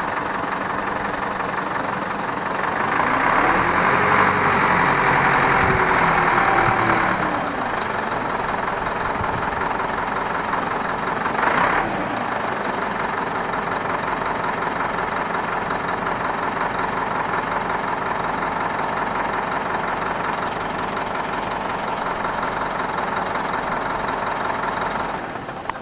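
Caterpillar 950E wheel loader's diesel engine running steadily. It revs up for a few seconds, rising and then falling back in pitch, and drops back to a steady run. There is one brief sharp sound a little before halfway.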